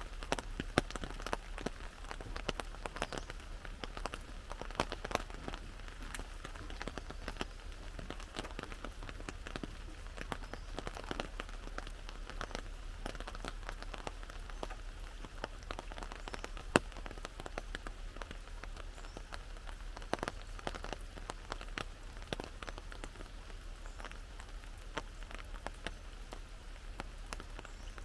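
Rain falling on an umbrella: many separate drop hits over a steady hiss of rain. One drop hits louder than the rest about seventeen seconds in.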